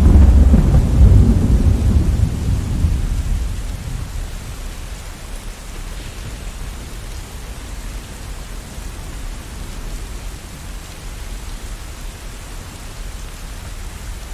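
A roll of thunder rumbling deep and loud at the start and dying away over the first few seconds, with steady heavy rain falling throughout.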